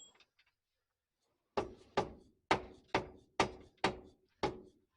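Seven hammer blows, about two a second, striking metal with a faint ring: tapping a transmission into place against the engine to line up its bolt holes.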